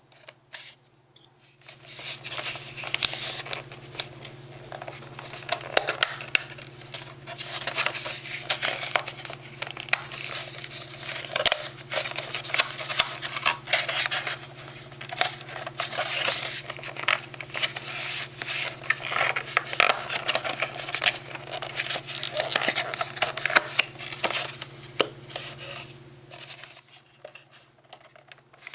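Plastic retail packaging being handled and opened by hand: steady scratching, rubbing and crinkling with many sharp clicks and snaps, stopping shortly before the end.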